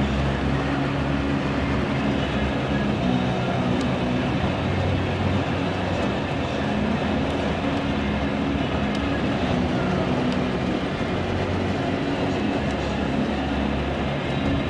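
Inside a moving car's cabin in a heavy rainstorm: a steady wash of rain on the roof and windows, over the low, even hum of the engine and tyres on the wet road.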